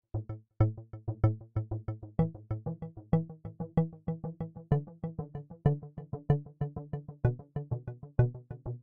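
Electronic background music: a synthesizer riff of short, evenly repeated notes, about four a second, over a low bass line.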